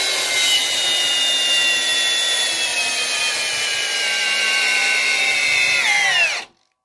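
Cordless drill with a socket driving a 10-inch lag screw into a wooden post, its motor running hard under load and slowly falling in pitch as the screw goes deeper. About six seconds in, the pitch drops sharply and the drill winds down and stops.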